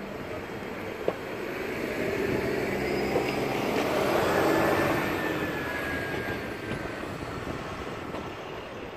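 A vehicle passing by, its noise swelling to a peak about halfway through and fading away, with a faint slowly falling whine. A single sharp click about a second in.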